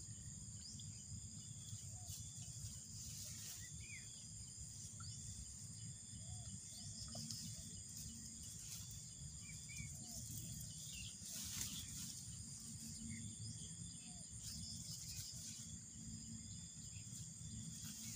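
Steady high-pitched chorus of crickets and other insects, with scattered faint short bird chirps over a low rumble. A brief rustle of grass comes about two-thirds of the way through.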